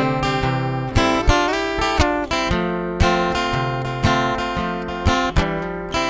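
Background music with a steady beat, a chord struck about once a second; no singing.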